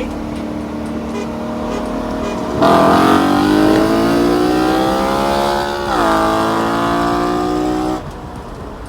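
BMW V8 car engine cruising steadily, then pulling hard under throttle about two and a half seconds in, its pitch rising, dipping briefly at a gear change near six seconds and climbing again before cutting off abruptly near the end.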